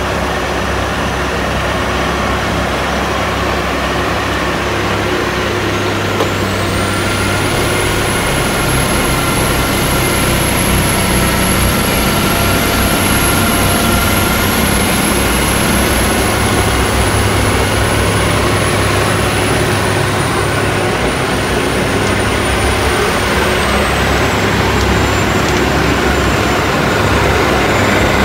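Heavy snow-clearing trucks running steadily, with a thin high whine that rises about six seconds in and drops back lower near the end.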